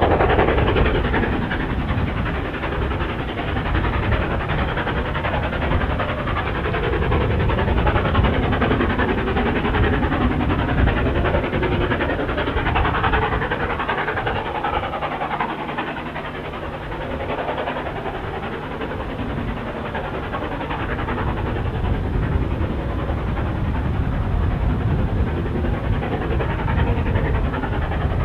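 Stanier 8F 2-8-0 steam locomotive working a passenger train away up the line, its exhaust and the train's running noise heard as a steady rumble that dips a little near the middle and then builds again.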